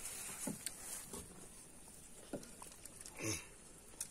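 Children eating samosas: chewing, with a few soft knocks and taps from hands and dishes on a wooden table, and one louder short sound a little over three seconds in.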